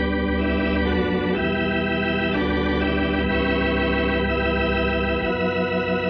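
Organ music bridge: sustained chords with a pulsing tremolo, moving to a new chord several times, marking a scene change in a 1950s radio drama.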